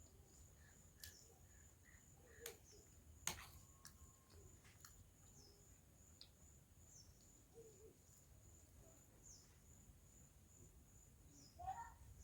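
Near silence, with a few faint scattered clicks, the loudest about three seconds in, and a short faint chirping call just before the end.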